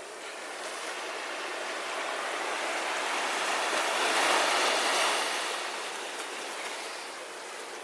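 A sea wave breaking and washing up the beach, a water rush that swells over a few seconds, peaks about halfway, then dies back.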